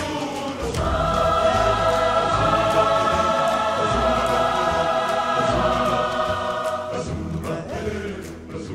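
Background music: a choir singing long held chords over a low bass line. The chord swells about a second in and fades back near the end.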